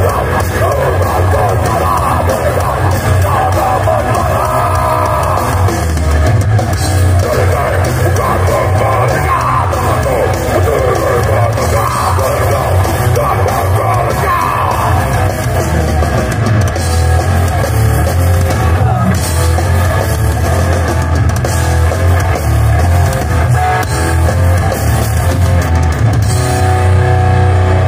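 Live heavy metal played loud by a band: distorted electric guitars, bass guitar and drum kit.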